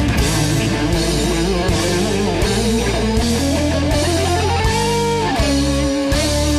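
Rock band playing: an electric guitar carries a held lead melody, sliding down to a long sustained note about five seconds in, over drums with cymbal crashes and bass.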